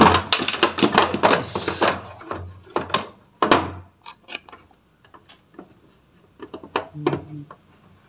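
Plastic knocks and clatter as the washing machine's plastic top housing and panel are handled and shifted by hand: a dense run of knocks for the first few seconds with a short hiss among them, then scattered lighter clicks.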